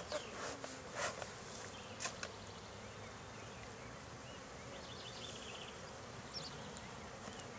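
Honey bees buzzing steadily around an opened hive, some of them disturbed by the hive being opened. A few brief sounds stand out in the first two seconds.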